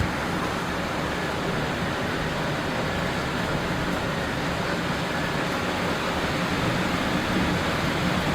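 Thunderstorm rain falling steadily: an even, unbroken hiss.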